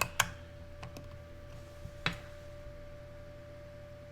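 Plastic-encapsulated silver coins being set down side by side: a few sharp clicks and taps, two right at the start and another about two seconds in, over a faint steady hum.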